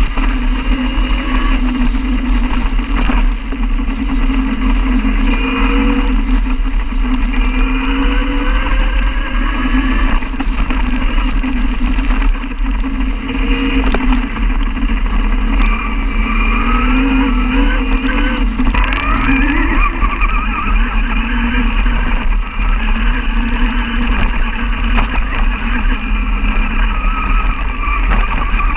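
Tacita T-Race electric enduro motorcycle's motor and drivetrain whining, the whine gliding up and down in pitch as the bike speeds up and slows on a dirt trail. Wind rumbles on the microphone throughout, with a few knocks from bumps in the track.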